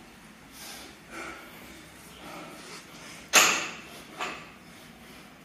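A weightlifter's breathing during a barbell lift from the floor to overhead: soft breaths, then one loud, sharp exhale about three seconds in as the bar goes up, and a shorter one a second later.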